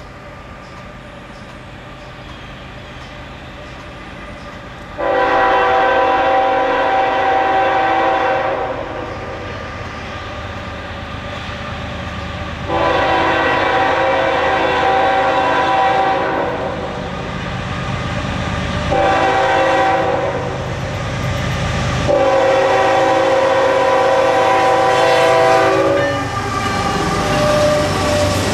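Air horn of a Norfolk Southern GE ES44AC diesel locomotive sounding the grade-crossing signal as it approaches: two long blasts, a short one, then a long one, each a chord of several tones. Near the end the locomotives run past close by with a low rumble of engines and wheels.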